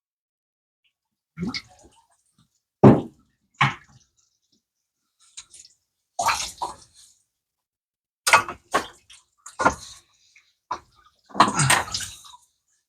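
Engine coolant draining from a Chevy 4.3 V6 as the water pump is removed, splashing out in short, irregular spurts separated by pauses.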